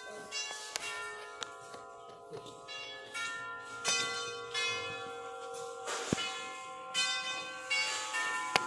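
Several mechanical clocks chiming and striking at once: overlapping bell and gong tones, with a fresh strike about once a second and each note ringing on under the next. Two sharp clicks come near the end.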